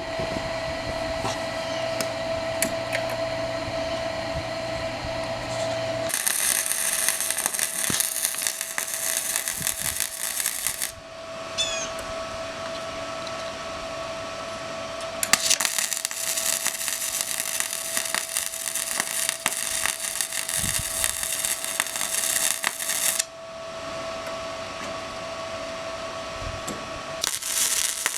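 Welding arc crackling and hissing in three runs: about five seconds, then about eight seconds, then again near the end. A steady machine hum with a constant tone runs underneath the whole time.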